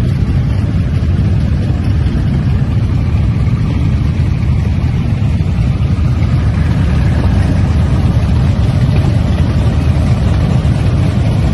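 Several Harley-Davidson motorcycles' V-twin engines idling together, a steady low rumble.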